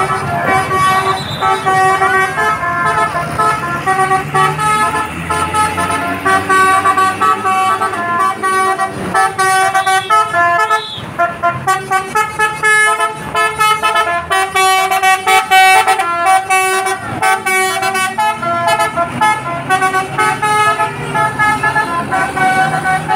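Bus 'telolet basuri' multi-tone air horn playing a tooting melody, with runs of quick staccato notes through the middle stretch, over the low running of the bus engine.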